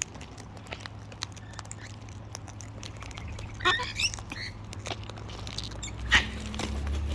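Close-up clicking and scratching of parrots' beaks and claws, with a short bird call about three and a half seconds in and another sharp call near the end, over a low steady hum.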